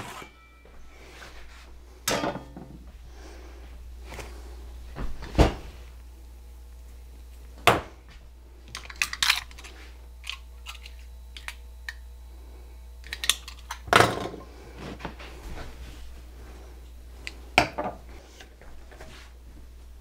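Kitchen utensils clattering on a wooden cutting board while a pizza is cut with a rolling pizza cutter and a long kitchen knife: separate knocks and clatters every few seconds, with a short cluster of them a little past the middle. A steady low hum runs underneath.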